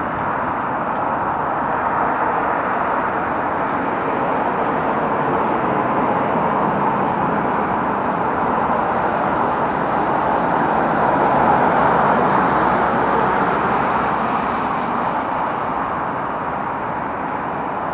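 Steady outdoor noise of road traffic, swelling a little around the middle as a vehicle passes.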